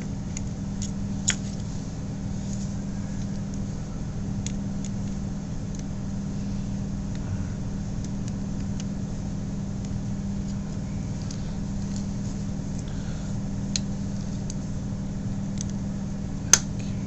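Steady low background hum with scattered light clicks and taps from a small screwdriver and fingers working on a plastic multimeter case and its circuit board; the sharpest click comes near the end.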